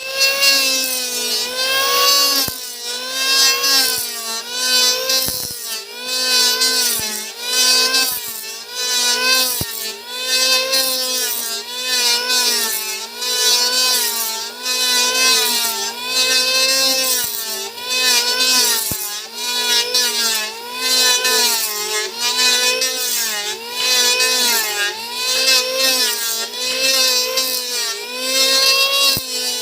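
Electric hand planer running and cutting wood, its motor pitch dipping under load with each pass and recovering again, over and over about every one and a half to two seconds, with a steady hiss of cutting.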